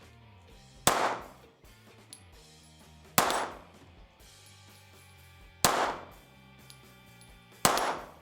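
Four 9mm pistol shots from a Glock 43X, roughly two seconds apart, each a sharp crack with a short echo tailing off. Quiet background music plays underneath.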